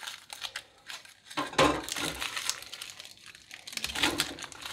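Aluminium foil crinkling in irregular bursts as it is peeled by hand off resin-stabilised wood blanks fresh from curing in the oven, loudest about one and a half seconds in and again near the end.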